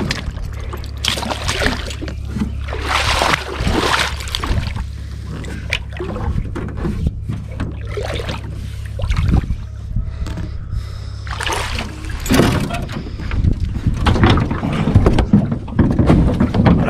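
Water splashing and sloshing around an aluminum jon boat as it is pushed off the ramp and boarded, in irregular bursts with knocks, busiest about a second in, three to four seconds in and over the last few seconds.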